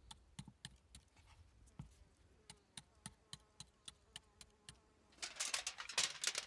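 Campfire crackling, with sharp irregular snaps and pops; about five seconds in, a much louder dry crinkling, rustling sound begins.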